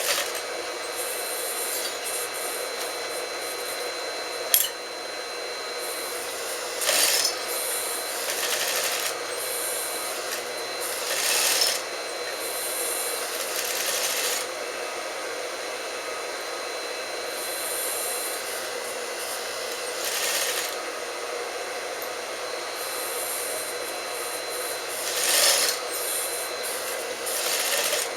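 Sewing machine running, its motor humming steadily, with about six short louder bursts of about a second each and one sharp click about four and a half seconds in.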